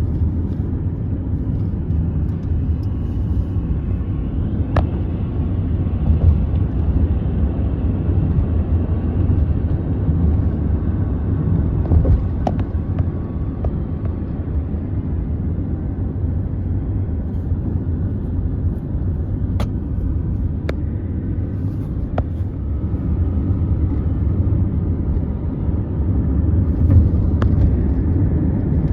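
Steady low rumble of a vehicle in motion, with a few scattered light clicks.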